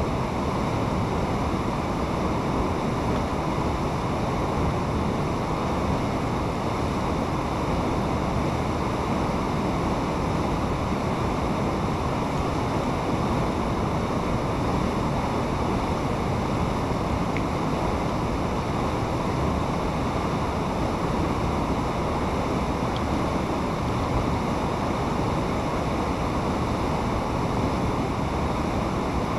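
Fast-flowing water rushing steadily through a channel, a continuous churning sound.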